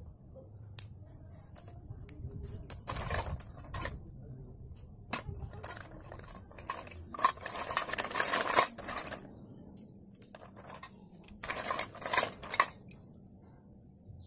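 Slate pencils clattering and clinking against each other and a stainless steel bowl as a hand stirs through them: a few short bursts of rattling, the longest in the middle, with scattered single clicks between.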